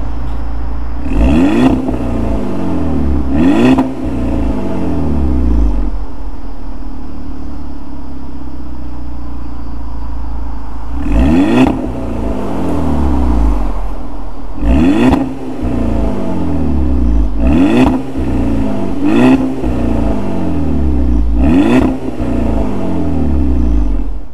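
VW Golf GTI Mk6's 2.0-litre turbocharged four-cylinder, breathing through an APR RSC turboback exhaust, accelerating hard through DSG upshifts. Each rising rev sweep breaks off with a sharp pop or burp as the gearbox shifts, the 'DSG fart' of a wide-open-throttle upshift. In the middle it holds a steady cruise for about five seconds, then pulls through several more upshifts.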